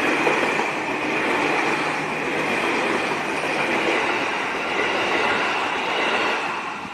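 Commuter electric train passing close by without stopping: steady rattle of wheels on rail with a high steady whine above it. The noise starts to fade near the end as the last car goes by.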